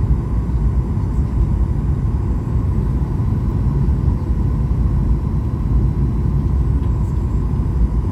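Boeing 737-800 cabin noise: a steady low rumble of the engines and airflow, with a faint steady whine above it.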